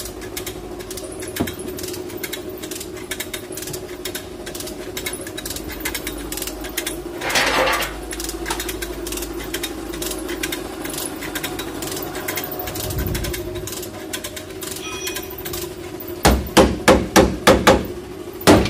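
Steady hum with rapid light clicking, then, from about 16 seconds in, a run of hard hammer blows on sheet-metal car bodywork, roughly three a second, the loudest sound here.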